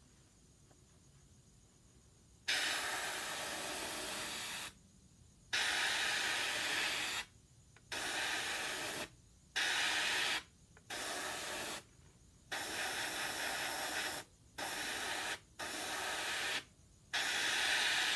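Airbrush spraying clear coat in about nine short bursts of hissing air, each one to two seconds long, starting about two and a half seconds in. Each burst starts with a brief louder spurt as the trigger opens.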